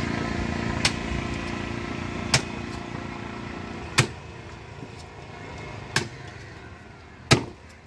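A heavy knife chopping through a fish on a wooden log block: five sharp strikes about a second and a half apart. Under the first half, a motor vehicle engine runs steadily and fades away.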